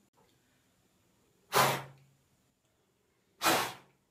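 Two short, hard puffs of breath blown at a candle, about two seconds apart.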